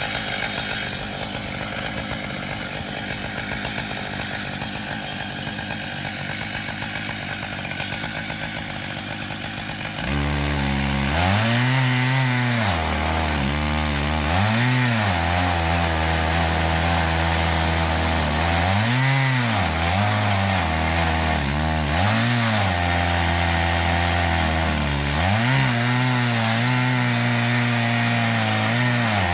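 Stihl MS880 two-stroke chainsaw, mounted on a chainsaw mill, ripping a slab along a wide willow log. About ten seconds in it gets louder, and from then on its engine note keeps rising and dropping back as it works under load in the cut.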